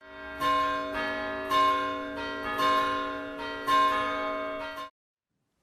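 Bells ringing a repeating pattern: a strong strike about once a second with lighter strikes between, the many tones ringing on over each other, then cutting off suddenly near the end.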